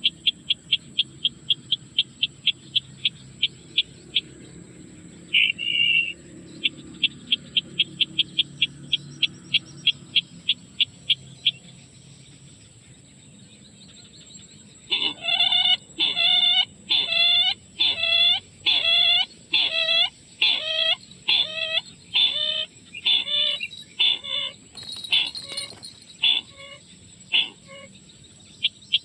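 Sintar bird calls. First a fast series of high pips, about five a second, in two runs. Then, from about halfway, a string of loud calls, each sweeping downward, repeated about once a second. A faint steady high whine runs underneath.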